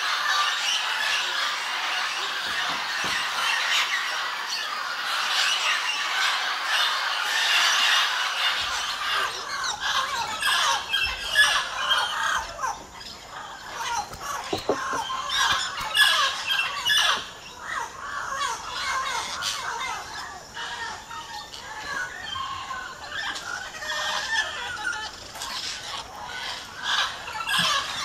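A large flock of parrots calling together, a dense din of squawks and shrill chatter. About nine seconds in it thins to a looser mix of separate, sharper squawks.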